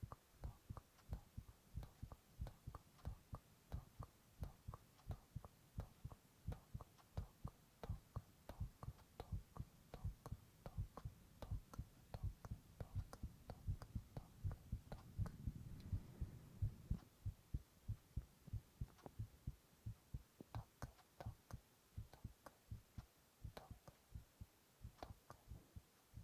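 A person's heartbeat, picked up close and amplified, beating in a steady, even rhythm of soft low thumps. A low swell of noise builds under it from about twelve seconds in and fades a few seconds later.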